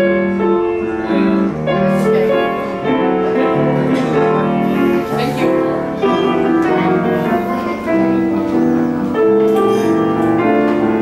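Grand piano played live: a melody over sustained chords.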